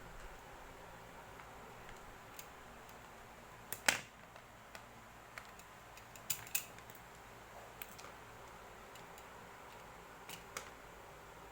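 Irregular light clicks and taps, about ten of them, the loudest just before four seconds in, over a steady low hiss.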